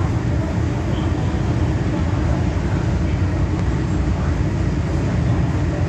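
Metro Cammell electric multiple unit train running steadily along the line, heard from inside the car: an even low rumble.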